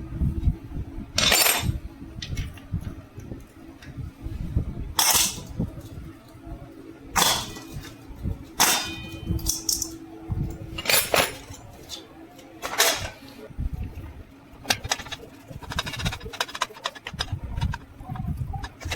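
Metal parts and tools clanking and clinking against each other, a sharp ringing strike every second or two, over a steady low hum.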